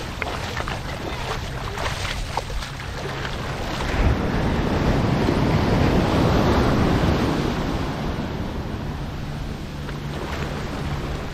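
Surf at a beach: a wave rushes in, swelling from about four seconds in and fading out by about eight seconds. Light clicks come in the first few seconds, and a steady low hum follows.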